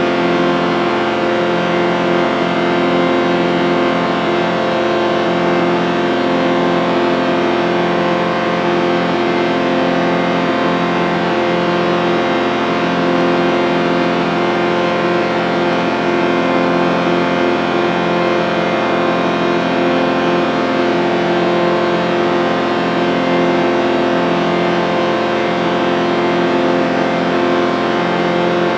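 A chord sound effect: many notes held together as one steady, unbroken drone at an even level, with a slight flutter in its lowest notes.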